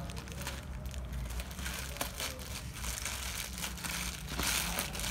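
Clear plastic parcel wrapping crinkling and rustling as it is cut open with scissors, with a few sharp clicks. The loudest crinkling comes near the end.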